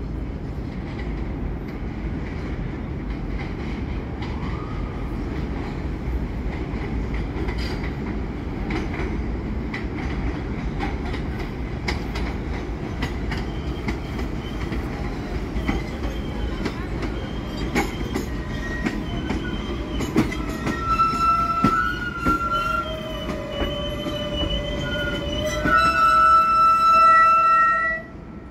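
R142-series New York City subway train pulling into an elevated station over a steady low rumble. From about halfway through, high squealing tones rise as the cars come alongside and grow loudest near the end, then cut off sharply.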